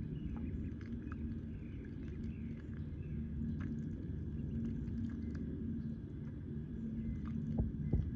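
Ducklings peeping with short, falling high calls and small clicks while they dabble in shallow muddy water, over a steady low hum, with a few low thumps near the end.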